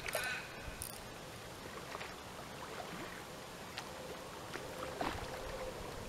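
Faint splashing of a hooked carp thrashing in the shallows as it is drawn in to the bank, with scattered small clicks.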